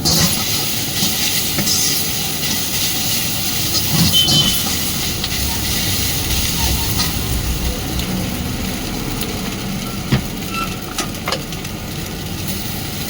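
Steady sizzling hiss of egg fried rice frying in a wok over a roaring gas burner, with a few sharp metal clacks of the spatula against the wok.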